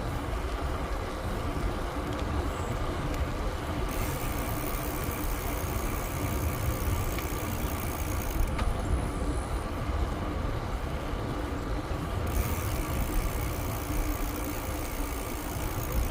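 Bicycle riding sounds with wind rumbling on the microphone as a steady low roar. A high, even hiss comes in about four seconds in, drops out around the middle, and returns near the end.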